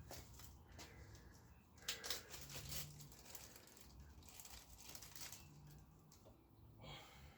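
Faint clicks and rustling of small parts being handled as clips are fitted onto a motorcycle's rubber fuel pipe, with a few sharper clicks about two seconds in and again near the end.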